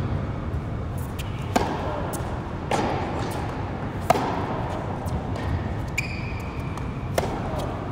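Tennis rally: sharp strikes of racquet on ball every second or so, each ringing briefly in a large indoor hall, over a steady low hum. A brief high squeak comes about six seconds in.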